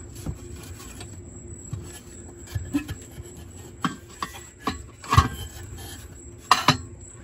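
Hands handling a car amplifier module and its plugged-in wiring harness connectors: a few scattered clicks and knocks of plastic and metal, the loudest about five seconds in, over a faint steady hum.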